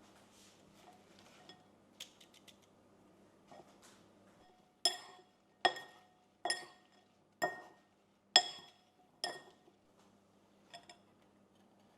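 A series of six sharp clinks on glass or china, a little under a second apart, each ringing briefly at the same pitch. Fainter clicks come before them and one softer clink comes near the end.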